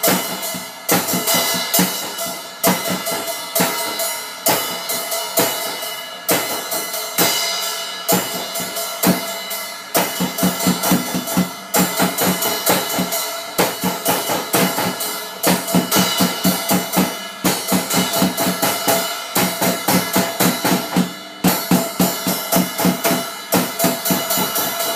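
A child playing a Pulse drum kit with sticks: a fast, continuous stream of bass drum, snare, tom and cymbal hits, with the cymbals left ringing underneath.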